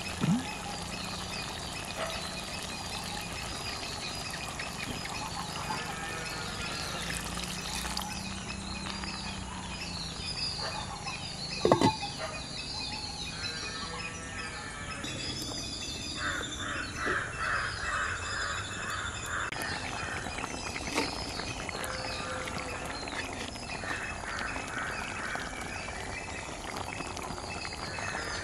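Rural outdoor ambience of birds calling and chirping, with a run of quick repeated calls past the midpoint. A sharp knock sounds about twelve seconds in.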